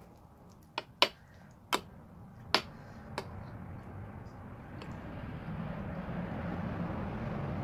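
A metal spoon clinks against a ceramic dish about five times while mixing curry into rice, then a steady noise swells louder and cuts off suddenly at the end.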